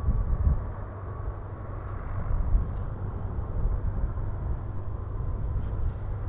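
The GE90 jet engines of a Boeing 777-300ER at low power while it taxis: a low, uneven rumble with a faint steady whine above it.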